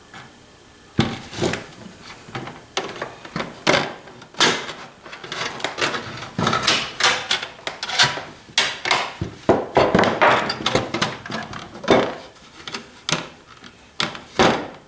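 Irregular clicks, knocks and rattles of an old satellite receiver being handled and turned over, its light steel case and plastic parts bumping and clattering, starting about a second in.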